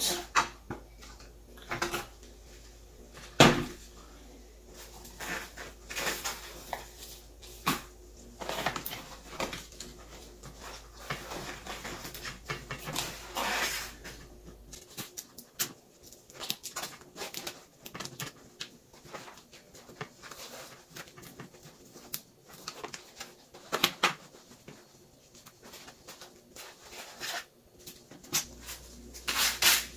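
A plastic plant pot scraping and knocking as it is pulled out of a larger outer pot and set down, with scattered taps and rustles of gloved hands working potting soil. One loud knock comes about three and a half seconds in.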